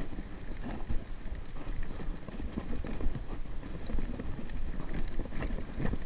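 Mountain bike rolling over a rocky dirt trail: tyres crunching on loose stones and the bike rattling, with many small clicks, under steady wind noise on the microphone.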